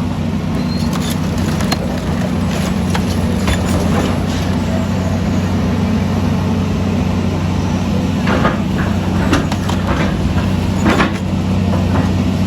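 Heavy diesel engine running steadily with a deep hum, over scattered knocks and clatter, a cluster of them in the second half.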